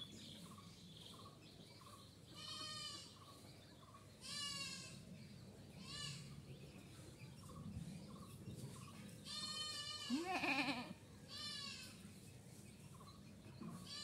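Goat bleating about six times, each call short and quavering. The loudest is a lower-pitched bleat about ten seconds in.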